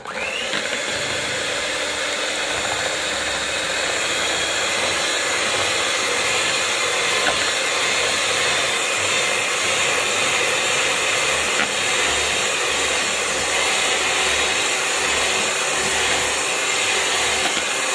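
Handheld electric mixer switched on right at the start and then running steadily, its beaters whisking egg whites to a froth in a plastic bowl.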